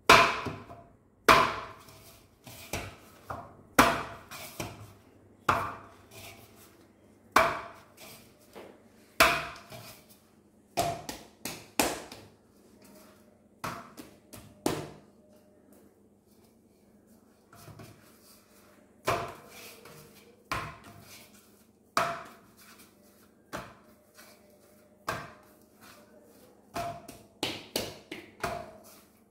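Rice flour and maida dough being kneaded and punched by hand in a large stainless steel plate: a thud roughly once a second, the steel plate ringing briefly after many strokes, with a lull about halfway through.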